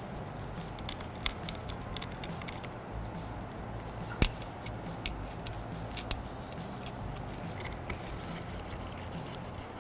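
Light clicks and taps of small screws and the metal bracket being handled as Phillips screws are set back into a power window motor on its regulator, with one sharper click about four seconds in. A low steady hum sits underneath.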